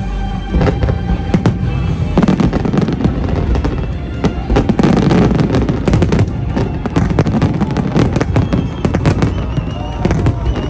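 Aerial fireworks display: a fast run of bangs and crackling bursts, densest about halfway through, with music playing underneath.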